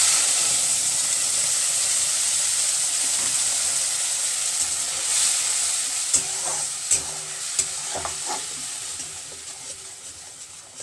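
Wet kharkol-leaf paste poured into hot oil in a metal kadai: a loud sizzle that starts suddenly and slowly dies down. From about five seconds in, a steel spatula stirs the paste with several sharp scrapes and clicks against the pan.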